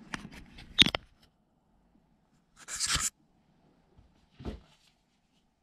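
Brief rustling and scraping handling sounds: a burst near the start with a sharp tap about a second in, another rustle around three seconds in, and a faint one near the end.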